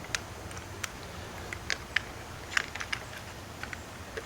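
Small, irregular plastic clicks and ticks as a mini wire-harness plug is worked into its socket on an electronic deadbolt's circuit board, about a dozen light taps scattered through.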